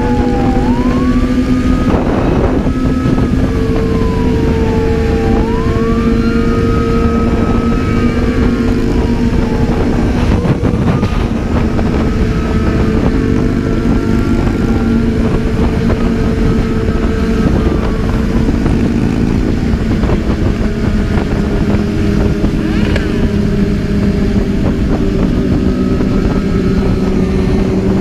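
Sport motorcycle engine running steadily at cruising speed, with heavy rushing noise on the bike-mounted microphone. Over it a police siren wails, its pitch sliding slowly down and sweeping quickly back up, again and again.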